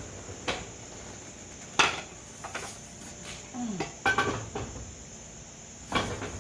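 Several separate clinks and knocks of cookware being handled, the loudest about two seconds in, over a steady high chirring of crickets.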